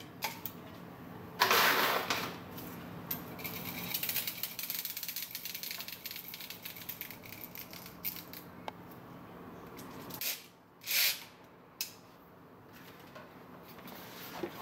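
Airsoft magazine and rifle being handled: a loud rattling clatter about one and a half seconds in, then several seconds of fast, fine mechanical clicking and a few separate knocks near the end, over a faint steady hum.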